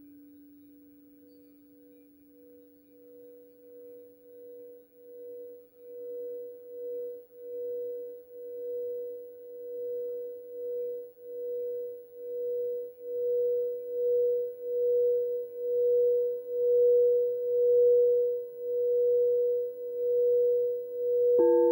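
A frosted quartz crystal singing bowl is rimmed with a mallet. Its single tone builds steadily from faint to loud, swelling and ebbing about once a second, while a lower ringing tone from another bowl dies away over the first few seconds. Just before the end a bowl is struck, adding two new tones.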